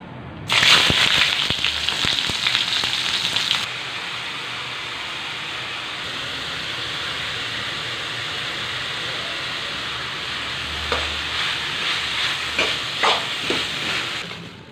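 Food frying in oil in a wok. A loud sizzle starts about half a second in and eases after a few seconds to a steady, quieter sizzle. Near the end a spatula stirs and knocks against the pan several times.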